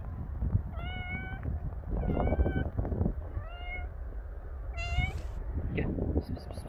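Calico cat meowing repeatedly: four or five short meows about a second apart, one of them near the end higher-pitched.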